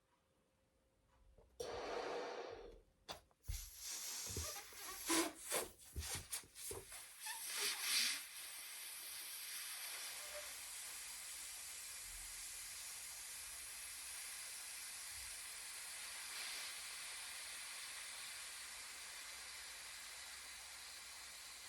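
A breath, then a rubber balloon rubbed and squeaked in the hands for a few seconds, then a steady hiss of air escaping slowly from its neck as it deflates.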